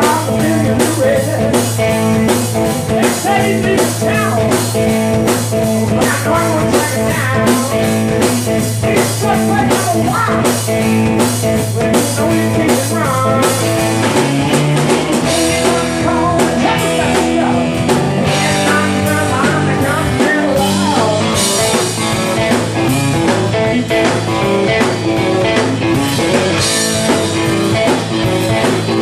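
Blues band playing: guitar lines with bent notes over a steady bass line and drum kit beat.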